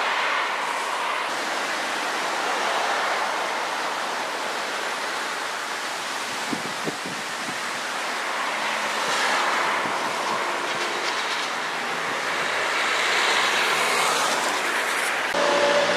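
Street traffic noise: vehicles passing with a steady rush that swells twice, about nine and thirteen seconds in, with a couple of light clicks in between.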